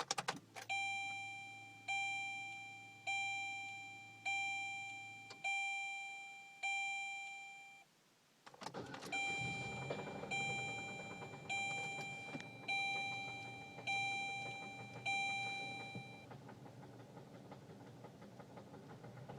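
Dashboard warning chime of a 2006 Saturn Ion ringing about once a second, with a low hum under the first chimes; about eight and a half seconds in the four-cylinder engine cranks and starts, and it keeps running under six more chimes and after they stop. The engine has a knock that a mechanic thinks may be a piston.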